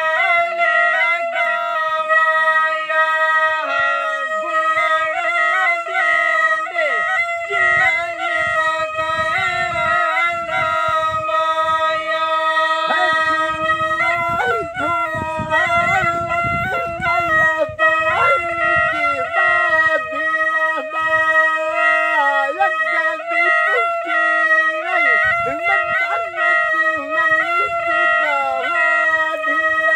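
Jori (alghoza), the paired wooden double flute, played throughout: one pipe holds a steady drone while the other plays a bending, ornamented folk melody above it.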